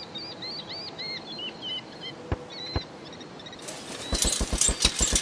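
Birds chirping in short repeated arched notes. Two soft knocks follow, and near the end comes a loud burst of hiss with rapid clattering, about eight knocks a second.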